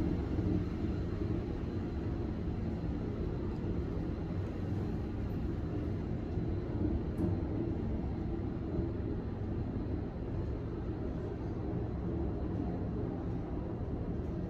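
Steady low rumble of an Otis traction elevator's glass cab in travel, heard from inside the cab; the ride is smooth, with no bumps or knocks.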